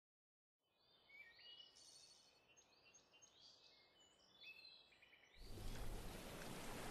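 Faint high chirps and short whistles, like birdsong, for a few seconds. Then, about five seconds in, a steady rushing noise sets in and grows louder.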